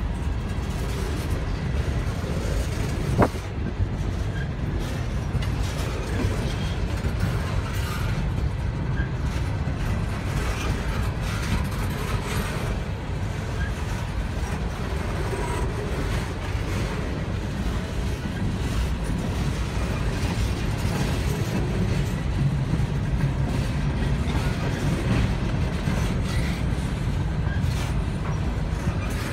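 Empty coal hopper cars rolling slowly past: a steady rumble of steel wheels on the rails, with a single sharp clank about three seconds in.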